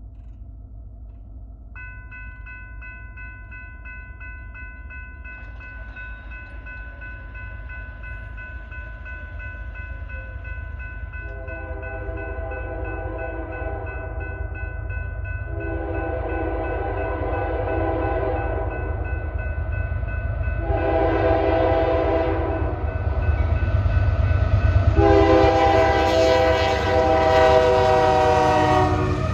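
Grade-crossing warning bells start ringing about two seconds in as the signals activate. Later an approaching freight locomotive sounds its air horn in the crossing pattern of long, long, short, long, over a low rumble that grows louder as the train nears.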